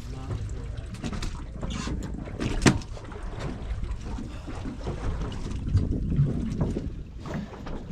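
Boat at sea: a steady low rumble with wind, broken by scattered knocks on deck, one sharp knock about a third of the way in.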